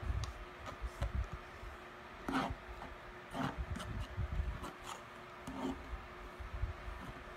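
Metal palette knife scraping and rubbing as it spreads wet white acrylic paint across a canvas board, a few short strokes about a second apart, with soft low thuds as the board shifts on the table.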